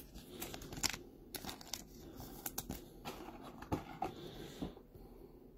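A stack of stiff Topps Chrome baseball cards being handled and flipped through by hand: cards sliding and snapping against each other in a string of light, irregular clicks and scrapes.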